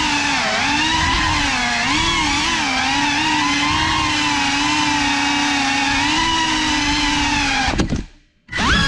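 GEPRC Cinelog 35 cinewhoop's brushless motors and propellers whining, the pitch wavering up and down with the throttle. About eight seconds in the whine cuts out abruptly as the drone crashes, then comes back in a short loud burst.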